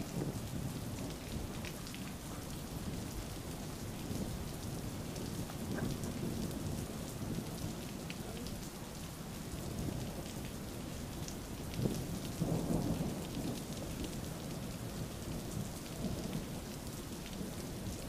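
Thunderstorm: steady rain with low thunder rumbling almost without a break, swelling louder about twelve seconds in.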